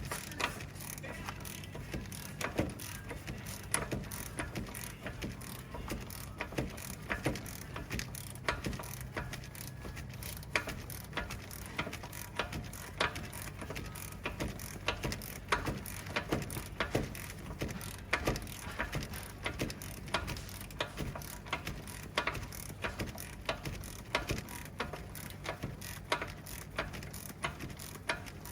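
Ratchet wrench clicking steadily on an engine barring tool, a few clicks a second, as the truck engine is turned over by hand to bring a flywheel bolt into reach.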